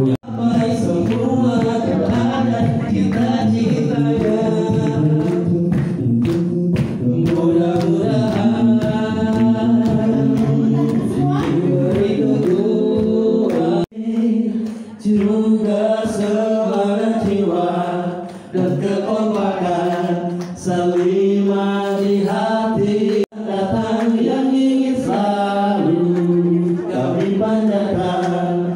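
Male vocal group singing in close harmony, a cappella, with two sudden brief breaks where the recording is cut.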